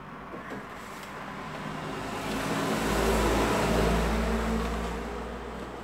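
A motor vehicle passing by: a broad rumbling noise that swells over about two seconds to a peak midway, then fades away.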